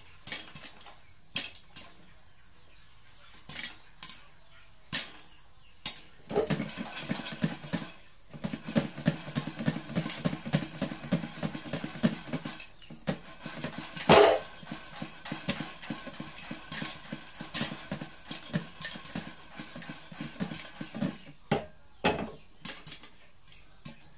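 Popcorn kernels popping in a covered pan: single sharp pops at first, then from about six seconds in a dense rattle of kernels as the pan is shaken over the flame, with one loud crack about halfway through, thinning back to single pops near the end.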